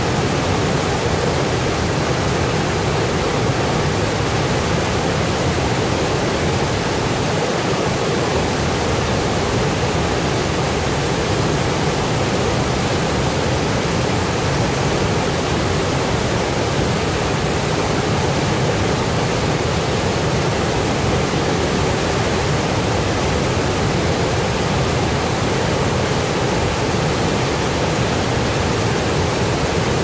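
Whitewater of a river cascade rushing over rocks, a steady, unbroken rush of water.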